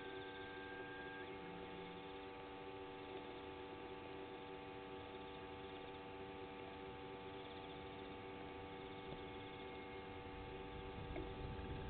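A steady hum of several held tones, with a faint high pulsing trill over it. A low rumble builds near the end.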